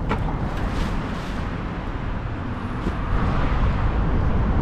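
Wind gusts buffeting the microphone outdoors: a choppy low rumble that grows louder about three seconds in, with a few faint clicks.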